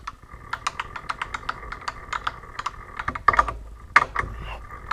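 Irregular sharp metallic clicks and taps of a steel tool being handled at a milling machine, over a steady faint machine hum.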